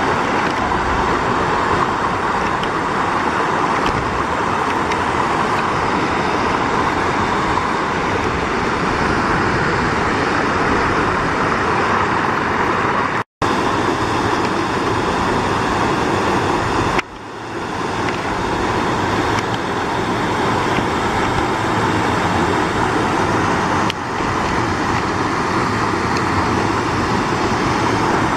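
Waterfall rushing: a steady, loud noise of falling water, cutting out for an instant about thirteen seconds in.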